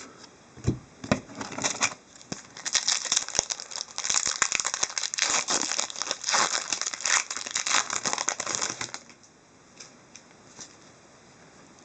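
Hockey card pack wrapper crinkling and tearing as it is opened and handled: a dense run of crackles from about two seconds in, dying away about nine seconds in.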